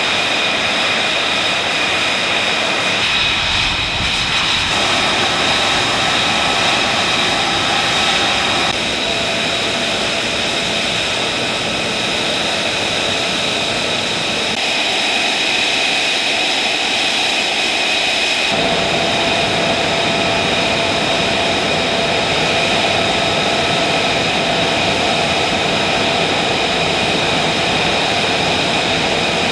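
Aircraft turbine engines running: a loud, steady rush of noise with high whining tones held constant. The mix changes abruptly four or five times.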